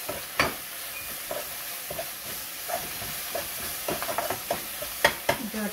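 Leafy greens sizzling in hot oil in a small frying pan while a spoon stirs and scrapes them. A sharp knock of the spoon on the pan comes about half a second in, and two more come near the end.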